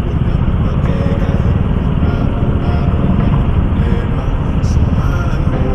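Scooter and motorcycle engines in slow stop-and-go city traffic, heard as a steady, dense low rumble on the rider's camera microphone as the scooter creeps to a stop among other motorbikes.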